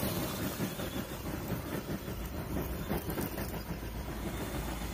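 Tamiya Bullhead RC monster truck driving over loose gravel, its tyres crunching and crackling through the stones.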